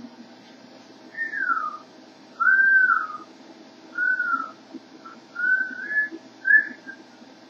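A person whistling five short, clear notes, each sliding in pitch: the first falls, the middle ones rise and fall, with quiet pauses between them.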